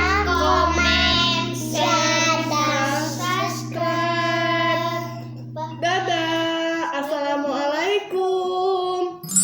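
A child singing a melody over backing music with long held low keyboard notes.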